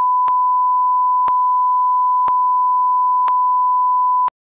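Steady 1 kHz reference tone of the kind played with colour bars at the head of a tape, with a slight click once a second. It cuts off abruptly near the end.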